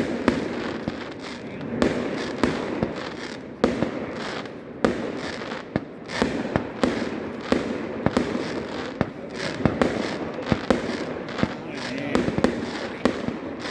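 Fireworks going off in a rapid, irregular run of sharp bangs, several a second, over a constant crackling hiss.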